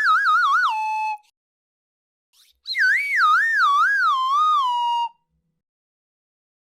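Cartoon slipping sound effect: a whistle-like tone that wobbles up and down as it slides lower, then settles on a steady note. The first ends about a second in, and a second, slower wobbling slide plays from almost three seconds to about five seconds in.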